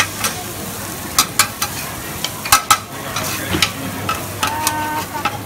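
Radish cake sizzling as it fries in oil on a large flat pan. Metal spatulas scrape and clink against the pan in quick, irregular strokes as the pieces are stirred and scooped.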